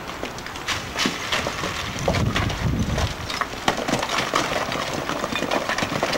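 Irregular rattling and knocking from inside a logging truck's cab as it jolts along a rough gravel logging road, with a low rumble that swells about two seconds in.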